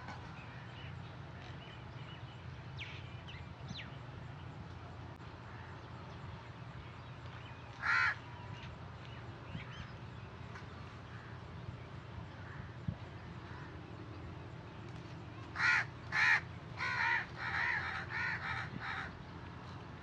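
Crow cawing: a single harsh caw about eight seconds in, then a quick run of six or seven caws near the end, over a steady low background hum.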